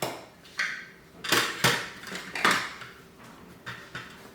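Hard plastic storage trays of a microscope extension base knocking and clicking as they are handled and fitted together: about six separate sharp clacks at uneven intervals.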